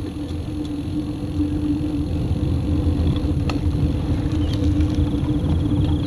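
Riding noise from a Brompton folding bike coasting along a road: a steady low rumble of wind on the microphone and tyres on asphalt, with a steady hum underneath.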